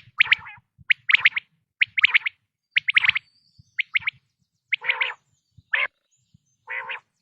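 Male common quail singing its sharp three-note call, repeated about once a second. In the second half a few lower, rougher notes come in between the phrases.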